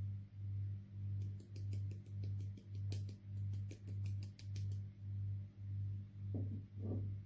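Slime being squeezed and poked, giving a quick run of small sharp clicks and pops for a few seconds. Under it a low hum swells and fades about one and a half times a second.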